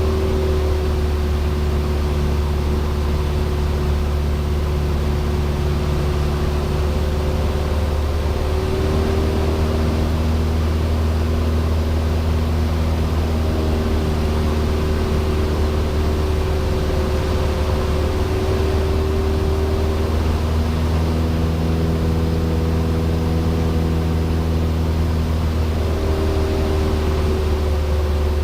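Cessna 172 light aircraft's piston engine and propeller droning steadily in flight, a constant low hum heard from inside the cabin. A few fainter steady tones sit above it and change pitch every few seconds.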